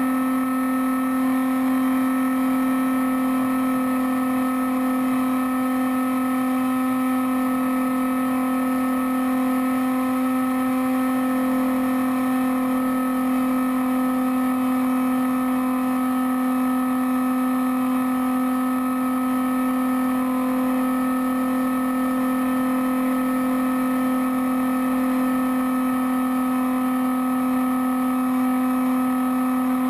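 Bixler foam RC plane's electric motor and pusher propeller running at steady cruise throttle, a constant buzzing whine that holds one pitch throughout.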